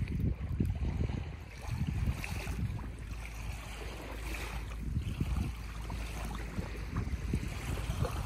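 Wind buffeting the microphone: a gusty, uneven low rumble that eases briefly about a second and a half in.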